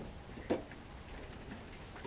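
Two sharp clicks of small hardware being handled, one at the start and one about half a second in, then a few faint taps: screws and washers going through a metal mounting bracket and a screwdriver being picked up.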